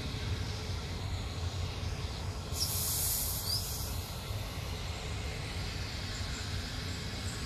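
Passenger coaches rolling slowly past on the rails, with a steady low rumble of wheels on track. About two and a half seconds in, a burst of high hiss rises and lasts nearly two seconds.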